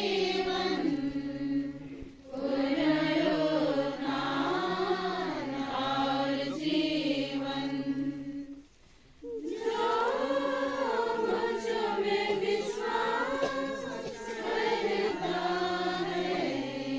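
Mourners singing a hymn together in long, slow phrases, with short breaks about two seconds in and about nine seconds in.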